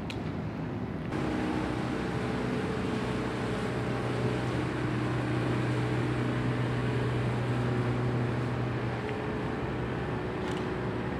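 Engine of a small open motor workboat running at speed as it passes close by: a steady hum with overtones that comes in abruptly about a second in.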